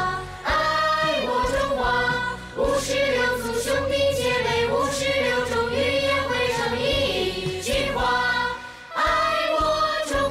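Music: a song sung by a choir of voices over a backing track with a steady beat, pausing briefly between phrases.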